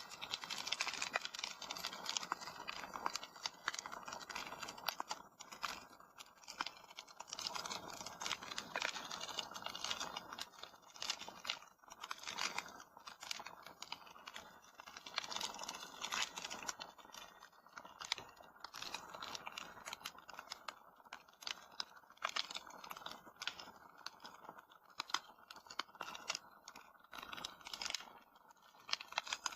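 Fireplace fire crackling: many irregular snaps and pops over a steady hiss.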